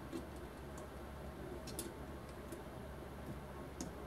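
Light metallic clicks, a handful at irregular moments, as a spring hose clamp is worked into the jaws of Lang 3977 angled locking hose clamp pliers.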